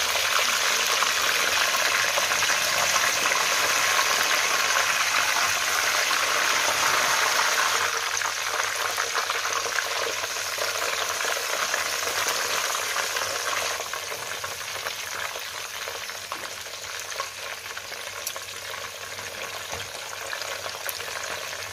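Marinated frog pieces frying in hot oil in a nonstick wok, a steady loud sizzle that eases somewhat about halfway through.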